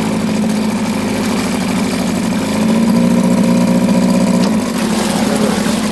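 A freshly tuned 1962 Mercury 6 hp two-stroke outboard motor running steadily in forward gear, getting a little louder for about two seconds midway and then settling back.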